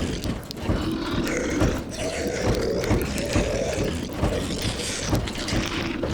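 Sound-design zombie growls and grunts, dense and overlapping, over a steady patter of small clicks and knocks.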